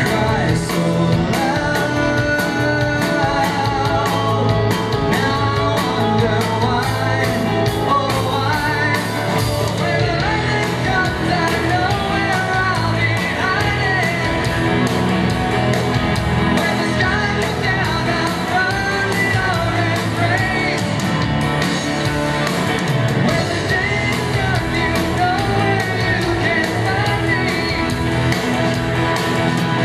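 Live rock band playing: electric guitars, drums and keyboard with a lead vocal, a full, steady mix throughout.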